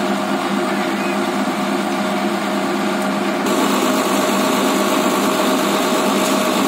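Crane truck's diesel engine running steadily, a constant hum with no revving; louder and closer from about halfway in.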